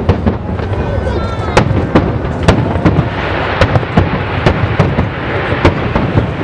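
Aerial fireworks bursting one after another, several sharp bangs a second, with a dense hiss from about three seconds in.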